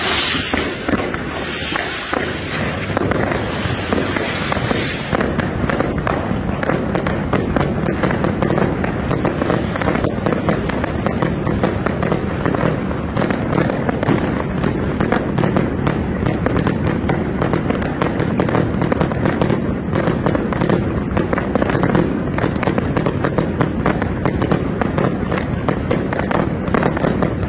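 A dense, continuous barrage of fireworks and firecrackers: rapid, irregular cracks and bangs that keep going almost without a break, with crowd voices underneath.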